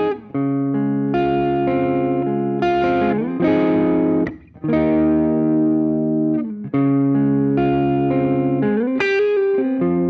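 Electric guitar played through a Maxon OD-808 overdrive pedal, switched on: overdriven chords and held notes, with a few short breaks and a couple of string bends, one near the middle and one near the end.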